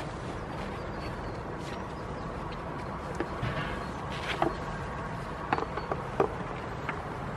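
Steady background rumble, with a few sharp clicks and rustles from about three seconds in as a goat kid clambers onto a lap and nuzzles at a jacket.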